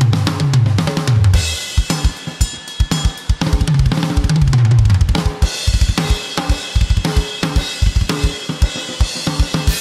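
A drum kit played hard: two tom fills rolling down from high to low toms, one right at the start and one about four seconds in, with crashing cymbals and fast, repeated bass-drum strokes in between and toward the end.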